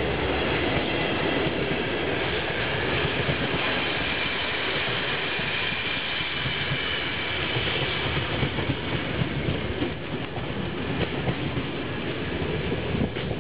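Passenger coaches rolling past at speed: a steady rush of steel wheels on rail, with clickety-clack over the rail joints. A faint high whine comes from the wheels, and the noise falls off as the last coach goes by at the very end.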